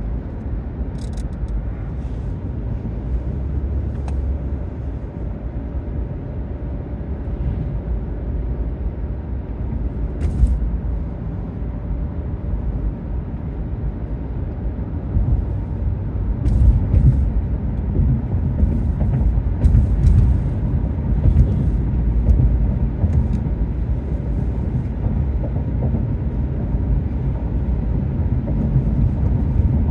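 Road noise inside a moving car's cabin: a steady low rumble of tyres and engine, with a few faint clicks and knocks from about ten seconds in.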